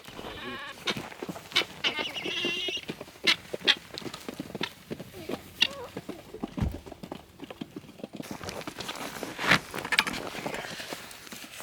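Chickens calling, with two short wavering squawks in the first three seconds, among scattered knocks and clicks.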